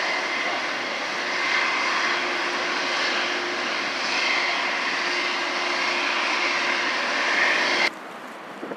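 Pratt & Whitney PW4084 turbofans of a Boeing 777-200ER running steadily as the jet taxis, a broad jet noise with a faint steady whine. Near the end the sound cuts off abruptly to quieter wind and lapping water.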